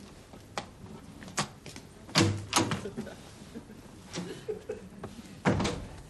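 Footsteps on a wooden floor and a room door being handled: a string of knocks and thumps, the loudest a pair about two seconds in, then the handle clicking and the door shutting with a thump near the end.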